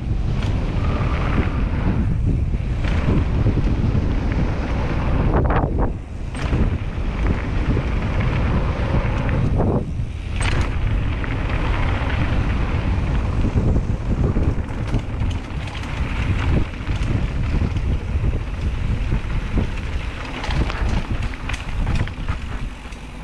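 Steady wind rushing over the microphone of a mountain biker's camera while riding downhill, mixed with the rumble of tyres rolling over dirt and gravel. A few sharp knocks from the bike come over bumps, two around six seconds in and one near ten seconds.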